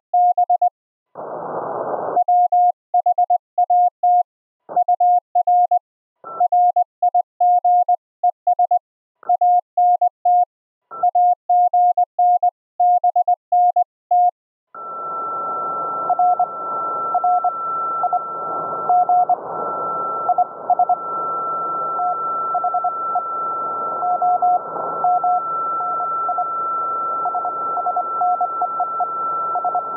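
Morse code keyed as a clean tone at about 700 Hz, with dead silence between the characters, from an HF transceiver's sidetone. About fourteen seconds in the sending stops and the receiver opens: steady band hiss with a constant high whistle, and weaker Morse code from another station faint in the noise. A second of hiss also breaks in near the start.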